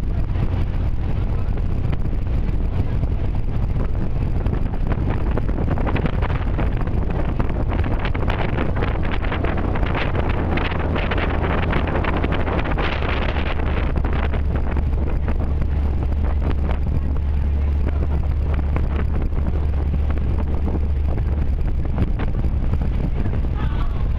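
Ferry's engine running steadily with a low drone, with wind buffeting the microphone; the wind noise grows stronger for several seconds in the middle.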